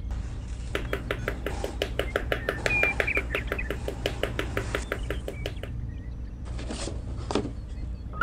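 Small rubber mallet rapidly tapping red wooden sticks down into sand as posts, an even run of about six taps a second for some five seconds. Near the end come a couple of short rustles.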